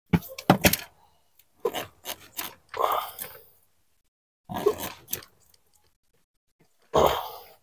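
Plastic clicking, crackling and creaking in about five short bursts as a stiff wiring connector and its locking clip are pressed and worked loose on a Kia Rio's heater blower motor housing.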